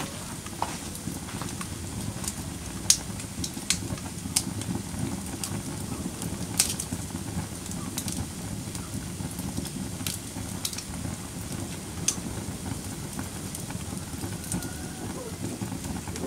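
Wood fire burning in a fireplace: a steady low rush with scattered sharp crackles and pops, about half a dozen of them louder than the rest.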